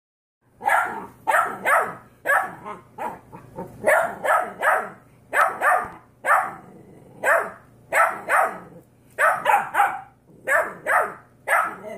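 Puppies barking in quick runs of two or three sharp barks, over and over.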